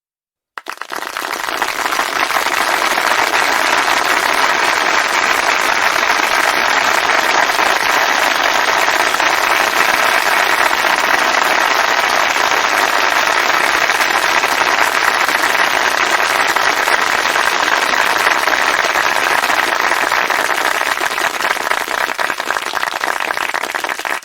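Crowd applause: many people clapping, starting suddenly about half a second in, holding a dense, even level, and thinning out near the end.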